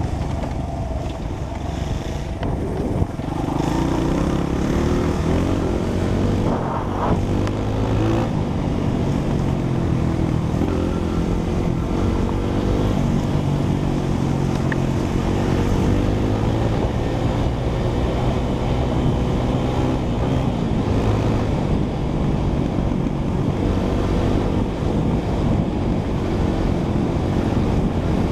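Honda CRF100F dirt bike's single-cylinder four-stroke engine running on the move, its pitch rising and falling as the rider accelerates and shifts through the gears. Wind rushes over the microphone throughout.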